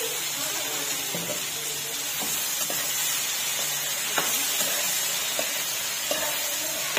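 Corn kernels sizzling in a frying pan as they are stirred with a spoon, which knocks against the pan now and then.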